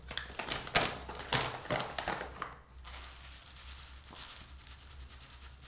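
Kraft-paper tea bag crinkling and crackling as it is unrolled and opened, with many sharp rustles, then quieter rustling in the second half.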